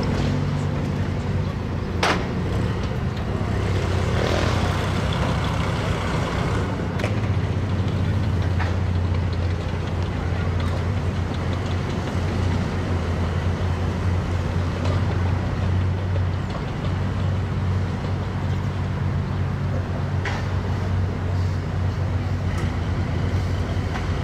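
Engines and running gear of tracked armoured infantry fighting vehicles moving slowly past in a column: a steady deep engine hum, with a few sharp metallic knocks from the tracks.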